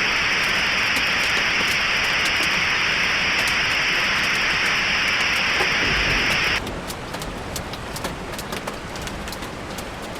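Steady hiss of static laid over rain, which cuts off suddenly about six and a half seconds in, leaving rain falling with scattered small crackles of drops.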